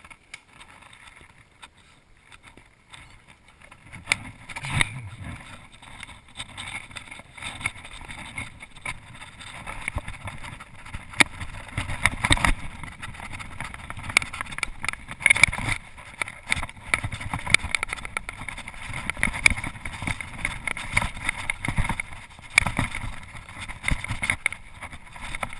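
Mountain bike ridden fast down a rough dirt trail: tyres on dirt with many sharp rattles and knocks from the bike over the bumps. It starts quiet and grows louder after about four seconds as speed builds.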